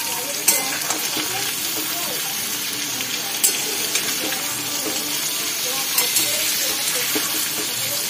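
Boiled jackfruit pieces with crushed garlic and green chillies sizzling in hot oil in a steel wok, stirred with a metal spatula that knocks against the pan a few times.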